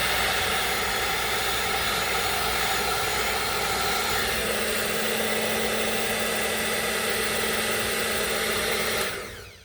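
Berta ionic hair dryer running steadily, its fan blowing with a faint steady whine, then switched off about nine seconds in and spinning down.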